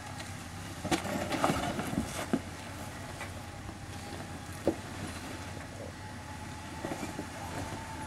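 A four-wheel drive's engine running at low revs as it crawls over rock steps. A few sharp knocks and crunches come from the tyres and underbody on the rock, mostly in the first few seconds and once more about halfway.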